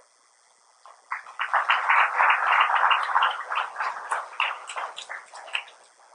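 Audience applauding: a dense burst of many claps starts about a second in and thins to a few scattered claps before stopping.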